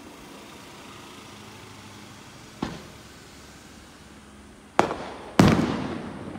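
Display fireworks bursting: one lighter bang about two and a half seconds in, then two loud bangs close together near the end, the last the loudest, each trailing off as it echoes.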